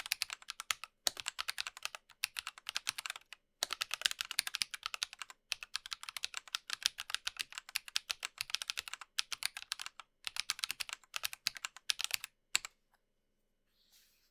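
Fast typing on a Dygma Raise split mechanical keyboard with Drop Holy Panda tactile switches, lubed and filmed: rapid key clacks in runs broken by brief pauses, stopping near the end.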